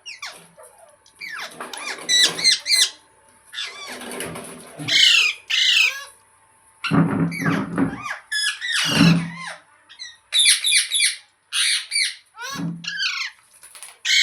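Pet parrot squawking and calling over and over in quick runs of short calls, with brief pauses between the runs.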